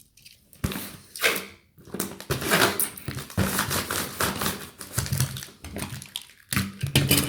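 Packing materials being handled: a dense run of irregular crinkling, rustling and clicking from bubble wrap, cardboard and tape.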